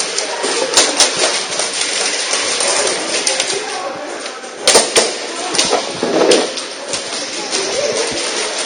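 Airsoft guns firing: scattered sharp cracks over steady rustling noise, the loudest two close together about five seconds in.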